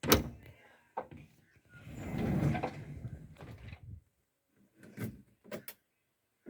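A loud clunk, another knock about a second later, then a rushing, rattling noise lasting about two seconds, and a few sharp knocks near the end.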